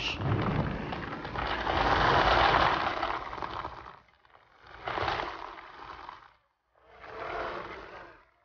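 Rushing noise that swells and fades three times: a long surge over the first four seconds, then two shorter ones about five and seven and a half seconds in.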